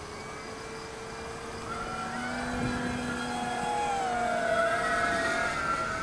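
Electric motor and propeller of an E-flite Cessna 150 radio-controlled model plane whining as it flies a pass overhead, growing louder toward about five seconds in, then easing off, its pitch bending slightly as it goes by.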